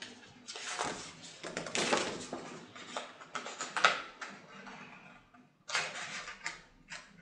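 A sheet of stiff white drawing paper rustling and crackling in irregular bursts as it is picked up and handled, with a short pause before a last run of rustles near the end.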